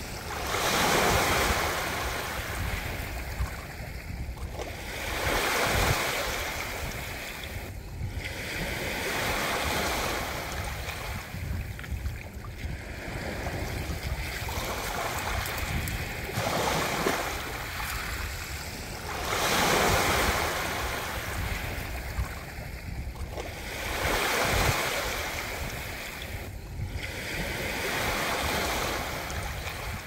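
Ocean surf: waves breaking and washing up in swells that rise and fall every three to five seconds.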